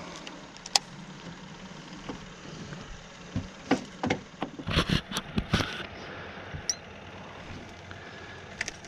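A run of clicks, knocks and rattles about four to six seconds in, from a crappie and slip-cork tackle being brought in and handled in a jon boat.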